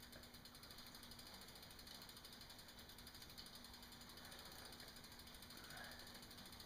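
Faint, rapid, even clicking of a bicycle's rear freewheel pawls as the pedals are turned backwards, spinning the chain while it is being lubricated.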